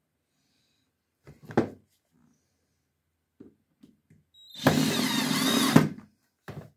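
Cordless drill running for a little over a second, boring into the edge of a laminated board panel, with a steady motor hum and a high whine. A few light knocks come before it, and a brief bump near the end.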